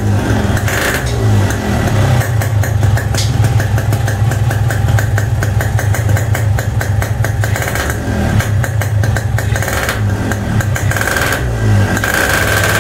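Yamaha RX-King two-stroke single-cylinder engine breathing through a CB31 'cebong' aftermarket expansion-chamber exhaust, idling and being blipped: the revs rise and fall several times, with a rapid popping beat from the exhaust between the blips.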